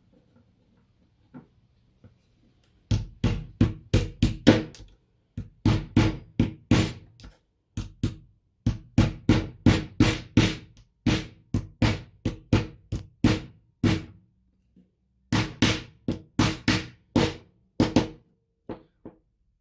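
Runs of sharp strikes with a short ringing tone, about three a second, in five bursts of six to eight separated by short pauses, starting about three seconds in.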